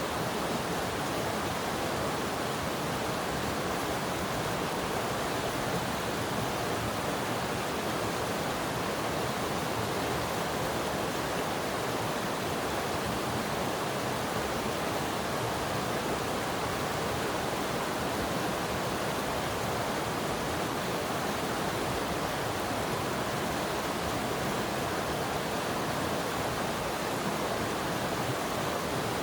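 Mountain stream rushing and splashing over rocks: a steady, even rush of water with no breaks.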